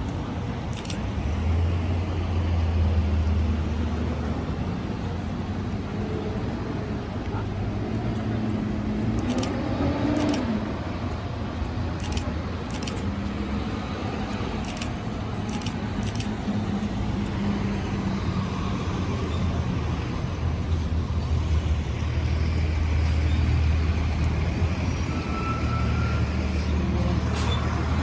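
Road traffic: vehicles passing with a steady low rumble that swells twice, once a couple of seconds in and again past the twenty-second mark.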